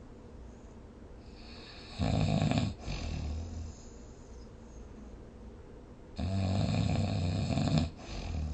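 A sleeping person snoring: two loud snores about four seconds apart, the second longer, each followed by a shorter, softer breath.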